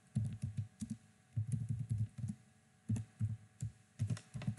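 Typing on a computer keyboard: quick, irregular keystrokes in four short bursts with brief pauses between them.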